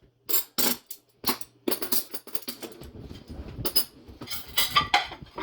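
Plates and cutlery clattering and clinking as dishes are handled at a dishwasher: a quick, irregular run of sharp knocks and clanks.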